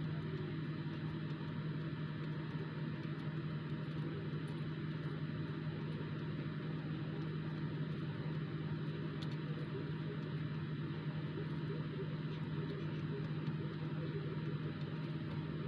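Steady low electrical hum with an even fan-like hiss, unchanging throughout.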